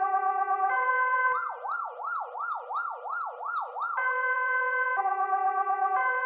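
Swedish police car siren alternating between a high and a low tone about once a second. About a second in it switches to a fast yelp sweeping up and down roughly two and a half times a second, then goes back to the two-tone pattern about four seconds in.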